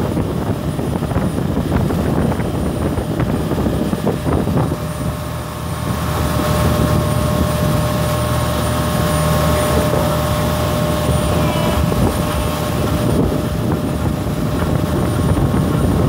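Tow boat's engine running steadily at speed, with wind on the microphone and the rush of the wake; the engine drone grows louder about six seconds in.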